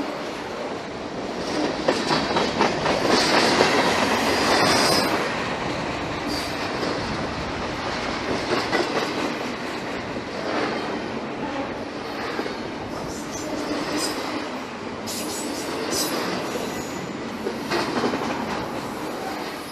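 Norfolk Southern freight train rolling past, its cars' wheels clattering over the rails with some wheel squeal, loudest a few seconds in.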